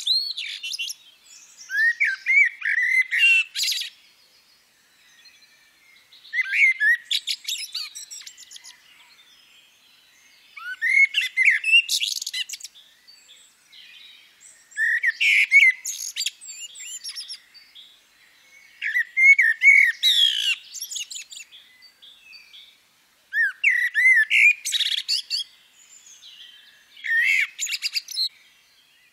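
A songbird singing, repeating a short phrase of whistled notes that run into a fast high trill, each phrase lasting a second or two and coming roughly every four seconds.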